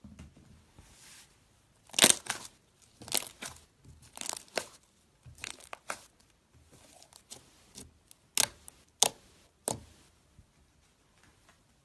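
Slime being squeezed and pulled apart by hand: a run of short, sharp crackling and tearing sounds, separate pops and rips, the loudest about two seconds in and a quick cluster near the end.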